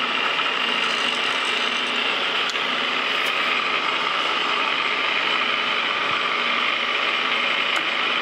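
Metal lathe running steadily in back gear, its gear train whirring with light ticking, while the threading tool takes a light cut of about three thousandths on a left-hand modified square thread, peeling off a curly chip.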